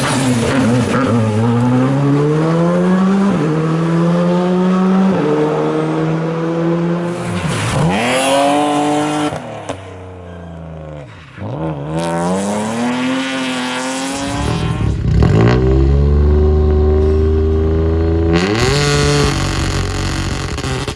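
Rally car engines at full throttle, the revs climbing and dropping back with quick gear changes. Twice the revs fall away as the throttle eases, and each time the car accelerates hard again.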